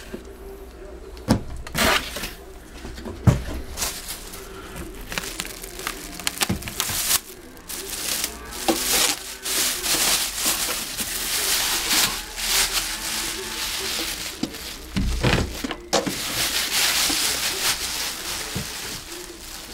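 Packaging being handled: a few knocks and scrapes of cardboard in the first few seconds, then long, dense rustling and crinkling of a plastic wrap being pulled off an appliance, easing off near the end.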